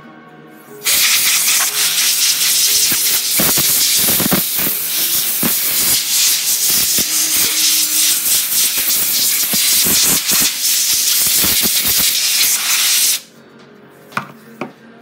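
Aerosol spray can spraying in one long, loud hiss for about twelve seconds, starting about a second in and cutting off suddenly. It is being aimed over a bare typewriter frame to clean it.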